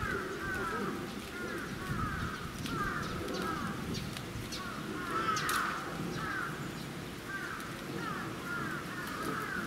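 A chorus of short animal calls, several a second and overlapping, over a low murmur.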